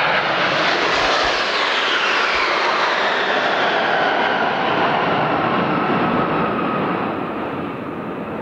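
A formation of jet aircraft flying past, a loud rushing engine roar whose pitch slides steadily down as they go by, easing off near the end.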